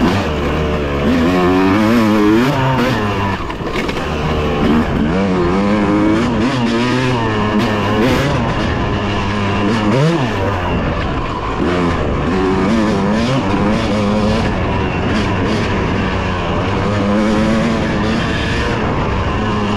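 Dirt bike engine on a trail ride, revving up and dropping back again and again as the throttle opens and closes, with a sharp drop and quick rise in pitch about ten seconds in.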